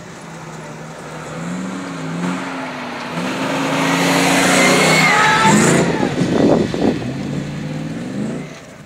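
A 4x4's engine revving up and down as it drives over sand dunes, with a rushing noise of tyres and wind that builds, peaks in the middle and eases off near the end.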